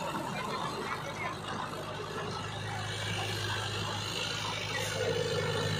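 Sonalika tractor's diesel engine running steadily under load as it drives a rotavator through a wet paddy field, a low steady hum that grows a little stronger near the end.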